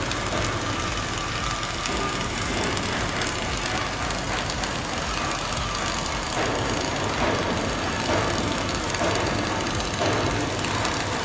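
Flux-cored arc welding arc crackling and sputtering steadily while laying a fillet weld in the flat position.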